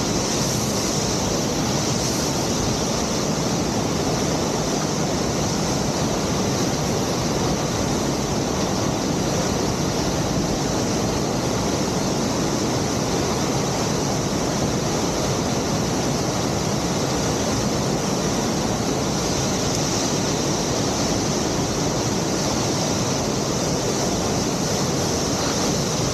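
Steady, unbroken rush of a waterfall and whitewater in a mountain stream gorge.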